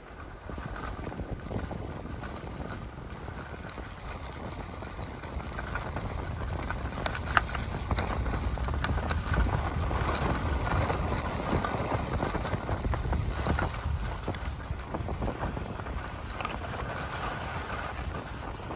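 Skis hissing and scraping over packed snow on a downhill run, with wind buffeting the microphone. The scraping grows louder through the middle of the run, with a few small clicks.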